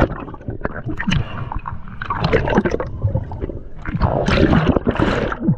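Underwater bubbling and gurgling with irregular knocks and clicks, heard with the camera under the surface.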